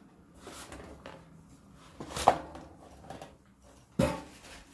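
A pan being handled and set down: a sharp knock a little over two seconds in with a short ring after it, another sharp knock at about four seconds, and faint handling noise in between.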